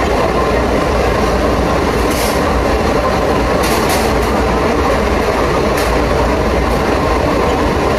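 Steady, loud mechanical din of fast-food kitchen equipment, with a low rumble underneath and a few short sharp clicks about two, four and six seconds in.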